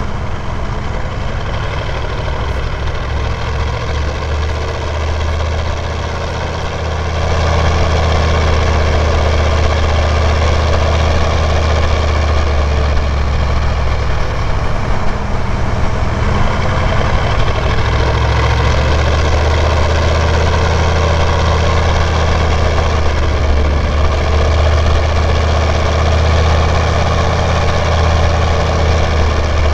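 1996 Chevy K1500's 6.5-litre turbo-diesel V8 pulling steadily uphill through a straight-piped 4-inch exhaust, with a steady turbo whistle over the low engine note. It gets louder about seven seconds in and then holds steady.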